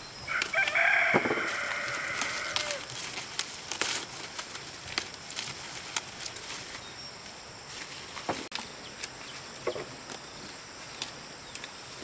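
A rooster crows once, one long call of about two and a half seconds right at the start, followed by scattered light clicks and knocks.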